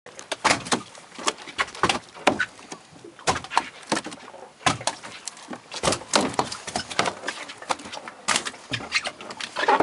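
A school of black rockfish splashing as they boil at the water's surface: rapid, irregular splashes, about two or three a second.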